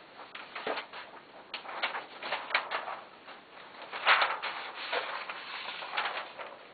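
Marker strokes scratching across a paper chart pad as lines are drawn: a run of short, irregular strokes, the loudest about four seconds in.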